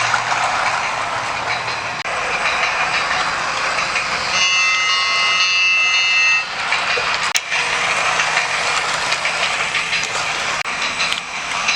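Battery-powered toy steam train running around its track, with its built-in sound effects playing a steady hissing steam noise. About four seconds in, a two-second electronic whistle of several steady tones sounds, and a sharp click comes shortly after.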